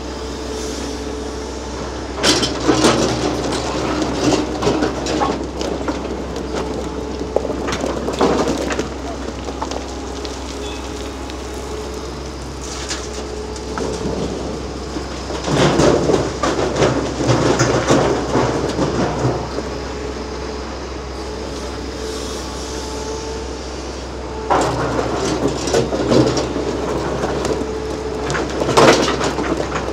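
Large hydraulic excavator's diesel engine running steadily, with several spells of loud rattling and scraping as the bucket digs into hard black Jurassic shale rock. The loudest clatter comes just before the end.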